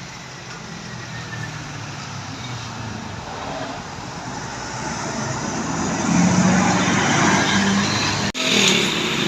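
A bus's engine and tyres on the road, growing louder over about six seconds as it draws close. The sound cuts out briefly near the end.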